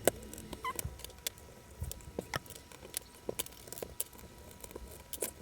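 Scattered light clicks and taps of screws being worked out of an old laptop's case.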